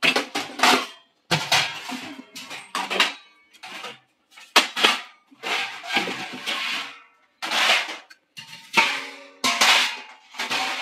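Stainless steel plates, bowls and pots clattering against one another as they are stacked and dropped into a large steel pot: an irregular series of ringing metal clanks with short pauses between them.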